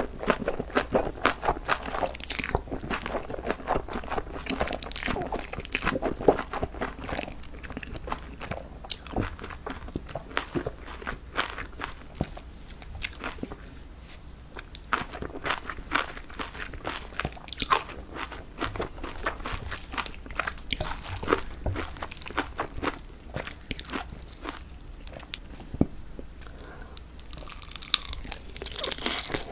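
A person chewing and biting crunchy food close to the microphone: a rapid, irregular run of crisp crunches and wet chewing sounds.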